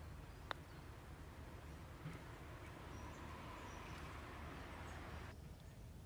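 A putter striking a golf ball once, a single sharp click about half a second in, over faint outdoor background. A soft hiss swells from about two seconds in and cuts off suddenly near the end.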